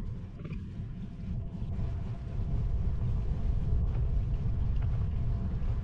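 Wind rumbling on the microphone of a road bike in motion. It dips a little about a second in, then holds steady.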